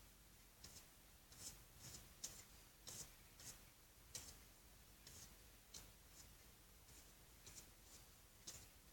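Faint paintbrush strokes dabbing acrylic paint onto a painting surface: short, soft scratchy dabs, irregular, about one or two a second.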